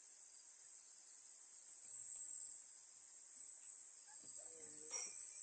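Steady high-pitched trilling of insects, swelling slightly about two seconds in, with a short sharp click near the end.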